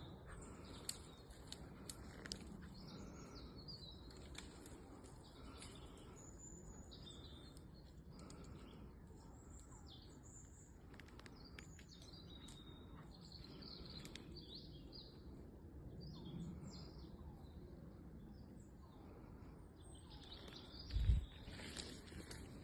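Small birds chirping and singing in scattered short phrases over a faint steady outdoor background. A brief low thump near the end.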